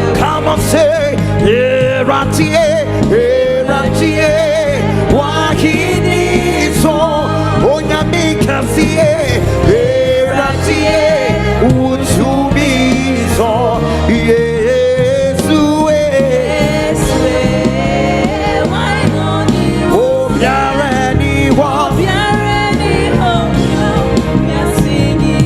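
Live gospel worship music: singers, a choir among them, over a full band with bass and drums, in a Ghanaian-style praise medley.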